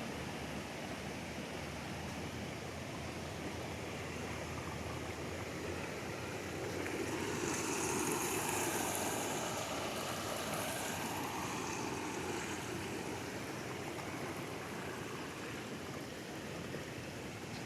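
Rain-swollen river rushing: a steady wash of moving water that swells louder for a few seconds around the middle.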